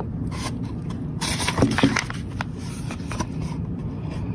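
A brief paper rustle and scrape about a second in, with a few light clicks, as a page of a picture book is turned, over a steady low background hum.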